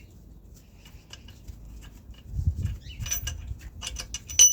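Metal hand tools clicking and tapping against engine parts, growing busier from about three seconds in and ending in a sharp, ringing metallic clink.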